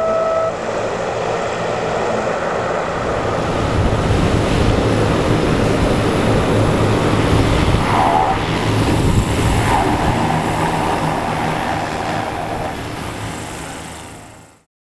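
Hovercraft running: steady propeller and engine noise with a low drone, fading out near the end. A steady high tone sounds for the first half second.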